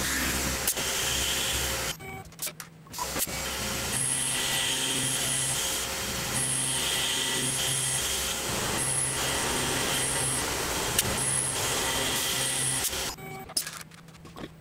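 Tormach PCNC 1100 CNC mill's spindle running as an end mill cuts 4140 steel on the fourth axis. The cutting sound comes and goes in a repeating pattern. It drops away briefly about two seconds in and again near the end.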